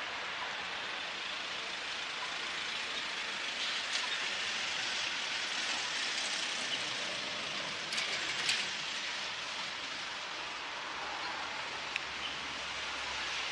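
Steady street traffic noise at a busy intersection: tyres and engines of passing cars as a continuous hiss, with a few brief clicks.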